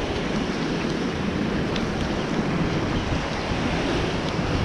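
Ocean surf breaking and washing against the rocks below, a steady rush of water with wind buffeting the microphone.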